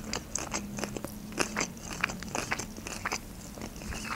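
Mouth chewing a sushi roll close to the microphone: a quick run of short, wet mouth clicks and smacks, a few each second.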